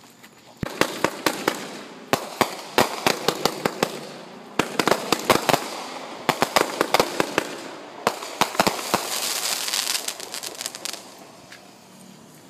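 Firecrackers on the pavement going off in a rapid, irregular run of sharp bangs, several a second, starting just under a second in and lasting about eight seconds. Then comes a hissing crackle that dies away about eleven seconds in.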